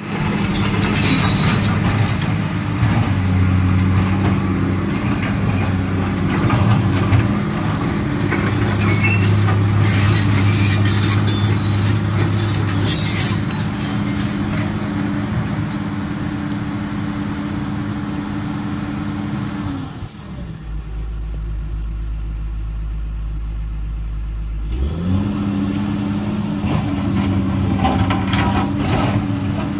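Komatsu PC210LC hydraulic excavator's diesel engine running steadily under load, with rock knocking and scraping as the bucket works loose rubble. About two-thirds of the way through, the engine note drops and the rock noise stops for about five seconds, then the engine revs back up and the knocking resumes.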